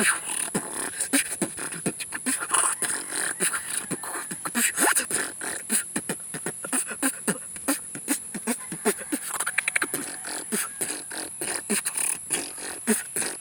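Solo beatboxing: fast mouth-made kick, snare and hi-hat clicks in a dense rhythm, mixed with short gliding pitched bass and vocal effects. A faint steady high whine sits underneath throughout.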